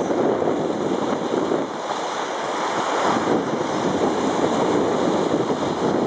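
Rough sea surf breaking and washing against rocks, a steady dense rushing, with wind buffeting the microphone.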